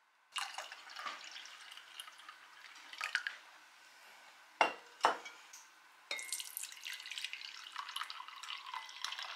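Coffee poured from a glass server into a ceramic mug: a steady pour that starts about six seconds in and runs on. Before it, liquid trickles and drips, and two sharp knocks of glass or crockery land about half a second apart.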